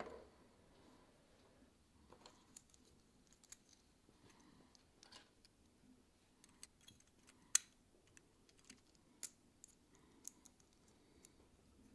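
Faint, irregular clicks and taps of 3D-printed plastic model parts being handled and pressed together, with one sharper click about seven and a half seconds in.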